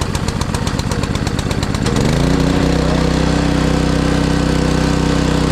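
Honda GC190 single-cylinder engine on a pressure washer running just after a cold start, first unevenly with distinct firing pulses while on choke. About two seconds in the engine speed rises and it settles into a smooth, steady run as the choke is worked.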